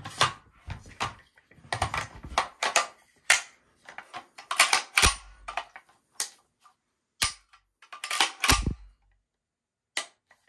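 FN SCAR-16S rifle being reassembled by hand: an irregular run of sharp clicks, clacks and knocks of polymer and metal parts snapping and sliding together, with a heavier clack a little over eight seconds in and a single sharp click near the end.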